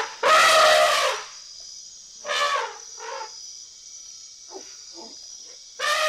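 African elephant trumpeting: a loud call at the start, two shorter calls about two and three seconds in, a couple of faint short calls later, and another long call beginning near the end.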